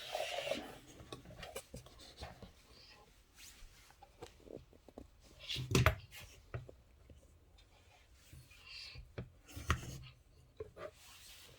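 Handling noise from a disassembled PC power supply: scattered small clicks and knocks with rubbing, two louder knocks about six and ten seconds in.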